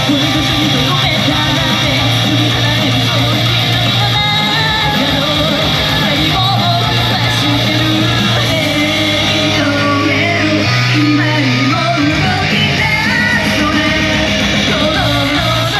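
A rock-style idol song performed live, loud and continuous, with electric guitar, a steady bass beat and singing.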